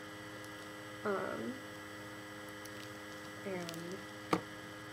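Steady electrical hum on the recording, with two brief murmurs of a woman's voice and a single sharp click near the end.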